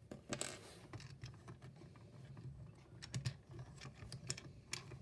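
Small plastic construction-toy pieces clicking and tapping lightly as they are handled, in scattered irregular clicks.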